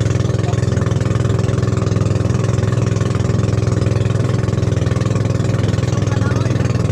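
Motorized outrigger boat's engine running steadily under way, a constant low drone, with water rushing and splashing along the hull.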